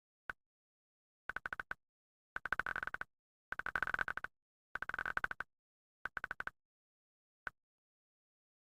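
A fart sound effect played over and over: seven bursts, each a rapid buzzy rattle of pulses. The middle five last about half a second each, with a single short blip before and after them, and dead silence between.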